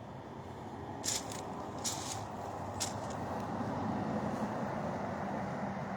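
Steady road traffic noise that swells slightly as a vehicle nears, with a few short scuffs about one, two and three seconds in.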